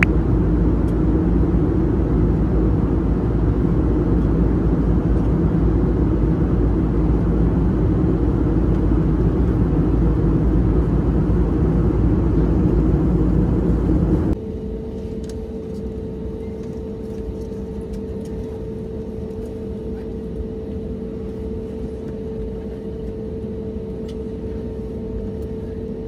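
Loud steady rumble of a vehicle in motion, cutting off suddenly about fourteen seconds in to a quieter steady hum with a constant tone.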